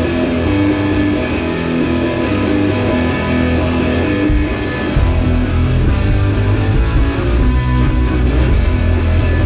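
Rock music with guitar. About four and a half seconds in, it moves into a fuller, louder section with heavier bass.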